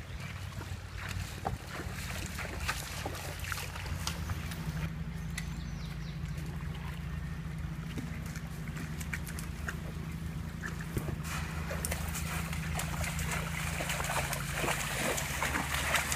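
Mule's hooves knocking on creek stones and splashing through shallow water, the splashing growing louder near the end as it wades in. A low steady hum runs underneath.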